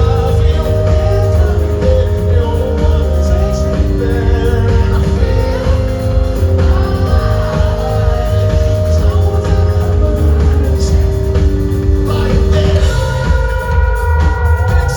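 Rock band playing live with a singer, heavy bass under held melodic notes, recorded from the audience. Higher sustained notes join near the end.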